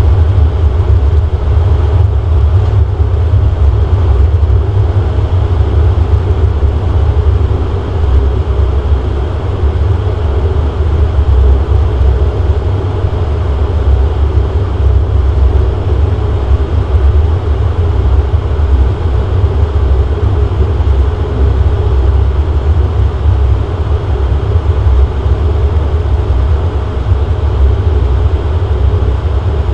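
Steady low drone of a DHC-8-Q400's Pratt & Whitney PW150A turboprop and propeller, heard inside the cabin as the airliner taxis at low power.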